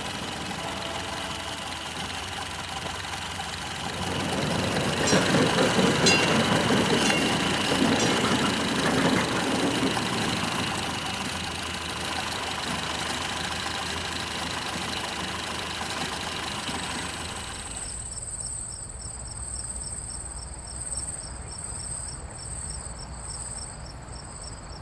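Indistinct, busy hall noise that swells a few seconds in. About three-quarters of the way through it drops away and gives way to crickets chirping in a steady, pulsing high trill.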